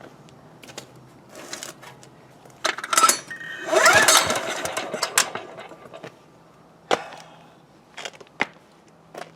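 A small diesel generator engine is pull-started by hand: one hard rope pull about 4 s in spins it up with a rising whir, and the engine doesn't catch and coasts to a stop. Scattered knocks and clicks come from handling the starter and the decompression lever.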